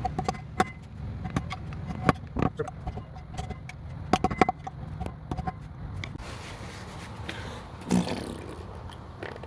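Scattered clicks and knocks of metal motorcycle parts and tools being handled during rear wheel hub reassembly, over a steady low hum, with a louder scrape about eight seconds in.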